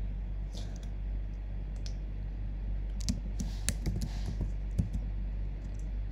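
Computer keyboard keys and mouse buttons clicking in short, irregular bursts, most of them in the second half, over a steady low hum.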